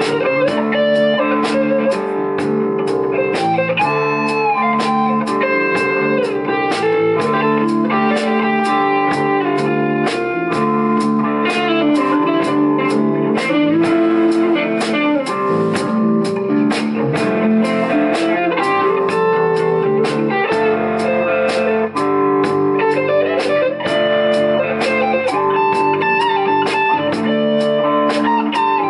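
Live rock band playing an instrumental passage: two electric guitars play lead lines with bent notes over electric bass and a drum kit keeping a steady beat on the cymbals.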